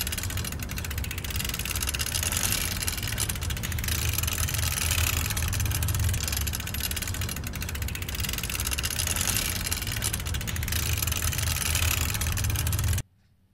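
A recorded mechanical running noise: a steady low hum under a dense, fast rattle, like a motor idling. It plays twice over with no audible join, then ends abruptly about half a second before the end.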